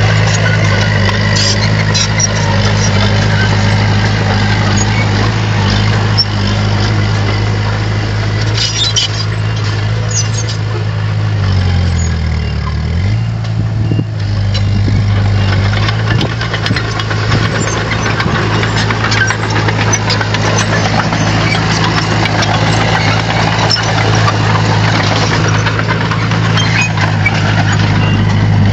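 Bulldozer's diesel engine running steadily with metallic rattling throughout; about twelve seconds in the engine speed drops briefly and then comes back up.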